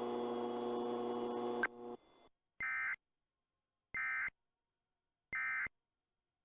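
Emergency Alert System End of Message tones: three short, identical bursts of two-tone digital data about a second and a half apart, the code that closes the alert. Before them a steady buzz cuts off with a click about a second and a half in.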